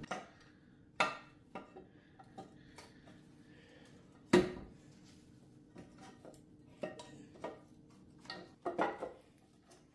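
Valve cover being set down onto a Jeep engine's cylinder head and shifted into place: scattered sharp metallic knocks and clatters, the loudest about four seconds in.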